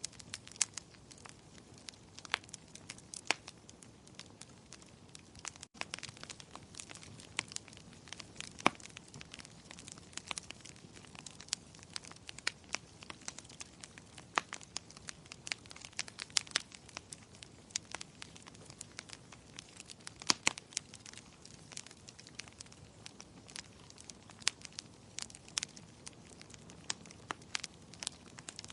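Wood fire crackling: irregular sharp pops and snaps of varying loudness over a soft, steady hiss.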